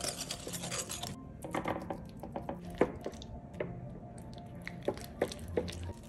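Wire whisk beating a thick spiced marinade in a ceramic bowl, a rapid scraping rattle for about the first second. Then wet squelching and scattered clicks as a pineapple ring is worked through the marinade by hand.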